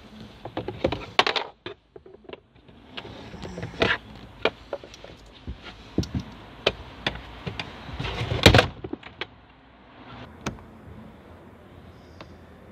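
Irregular plastic clicks and knocks from a car's glove box being handled and worked loose by hand, with a loud cluster of knocks about eight and a half seconds in; after that it goes quieter, with only a few scattered clicks.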